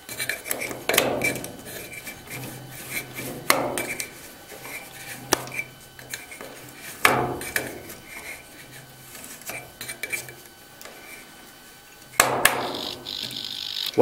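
Clicks, knocks and rattles of a jammed red mushroom emergency stop button being twisted and pulled by hand in its metal housing, over a steady low hum. About twelve seconds in, a louder, longer sound starts.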